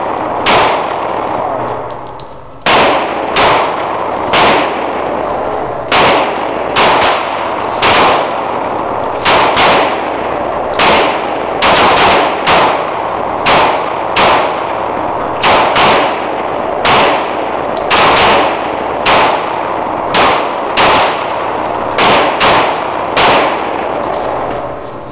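A Glock 26 9mm pistol fired shot after shot in an indoor shooting range, roughly one to two shots a second, each crack followed by a long echo off the range walls. There is a pause of about two seconds near the start.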